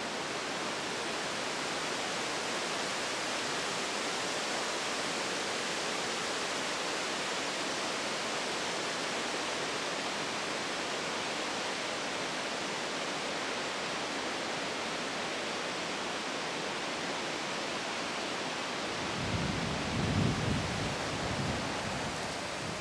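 Steady rush of falling water from a waterfall, with a burst of low rumbling near the end.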